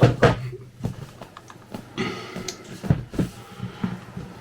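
A drone's packaging box being opened and handled: a string of irregular knocks, taps and scrapes, the loudest at the very start.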